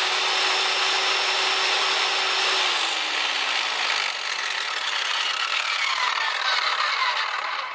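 10-amp, 1,200-watt corded circular saw running free at full speed with no wood in the blade, then let go about two and a half seconds in: its motor whine falls steadily in pitch as the blade spins down.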